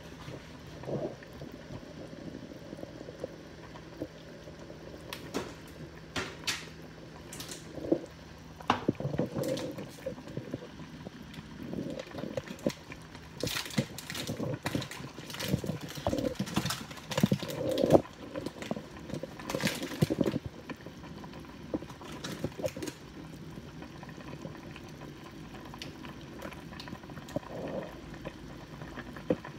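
Pot of bak kut teh herbal soup boiling on the stove, bubbling with irregular pops and crackles that come thickest in the middle stretch.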